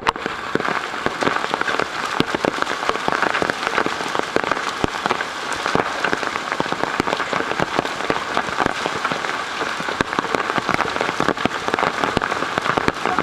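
Hailstorm: a dense, steady clatter of many hailstones striking hard surfaces, over a haze of heavy rain.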